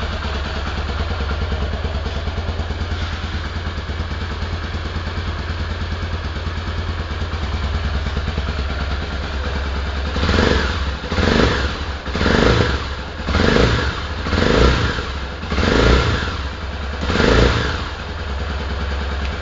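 Honda XR250 Tornado's single-cylinder four-stroke engine idling steadily, then revved in seven short throttle blips over about seven seconds before it settles back to idle.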